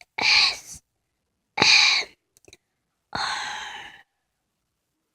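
A person's breathy sighs into a close microphone: three of them about a second and a half apart, the last one a little longer.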